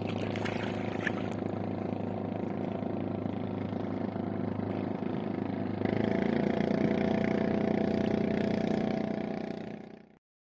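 Small boat engine running steadily with a constant droning hum, a few light clicks in the first second; the drone steps up louder about six seconds in and cuts off abruptly just before the end.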